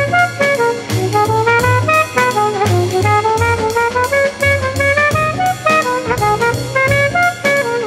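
Background jazz music: a quick melody line, most likely on horns, over a steady drum beat.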